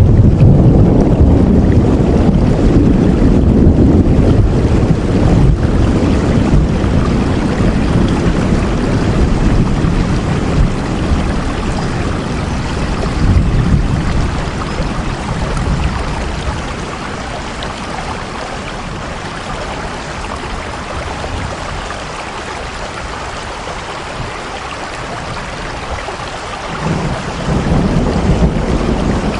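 Steady rain with a deep low rumble underneath that is strong at first, dies away about two-thirds through and swells back near the end.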